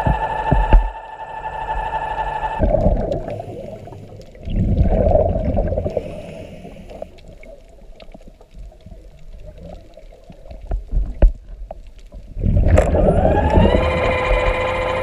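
Underwater scooter's motor whining steadily, then cutting off about two and a half seconds in. Gurgling, bubbling water sounds come in bursts before the motor spins up again near the end with a rising whine that settles into a steady pitch.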